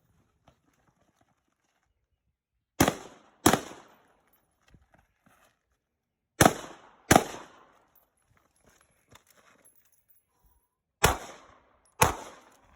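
Six gunshots fired as three pairs, the shots in each pair under a second apart and several seconds between pairs, each with a short echoing tail.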